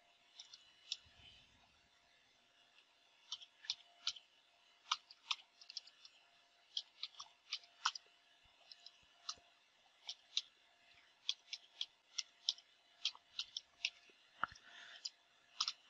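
Faint computer keyboard keystrokes: single clicks at an irregular typing pace, a few per second, starting about three seconds in.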